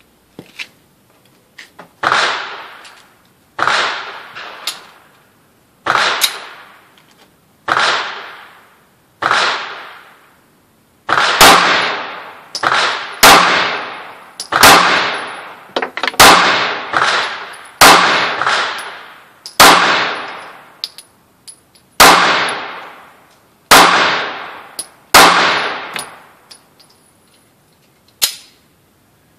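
SCCY CPX-1 9mm pistol firing at a slow, steady pace: over a dozen sharp shots about one to two seconds apart, each trailing off in echo.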